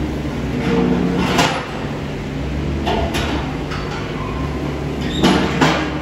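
Compact wheel loader's engine running steadily as it drives up the barn alley with its feed-pushing blade, with several sharp metallic clanks, the loudest pair near the end.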